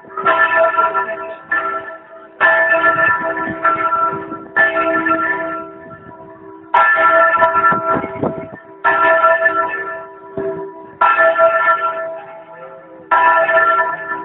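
A bell tolling, struck about every two seconds, each stroke ringing on and fading into the next.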